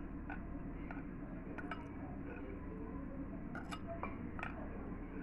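Metal spoon stirring a thin cornflour-and-water paste in a glass bowl, clinking against the glass in irregular light taps, a few close together in bursts, over a steady low hum.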